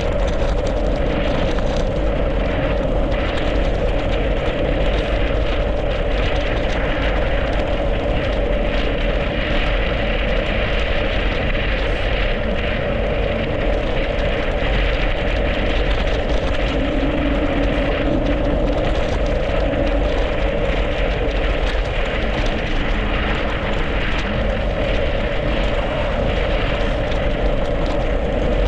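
Steady rush of wind on the microphone and tyre noise from a mountain bike rolling fast downhill on a snowy, icy road, with faint knocks now and then from bumps.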